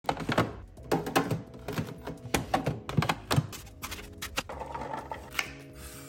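A quick run of sharp knocks and clunks from kitchen handling, about three or four a second, thinning out after about four and a half seconds, with faint music underneath.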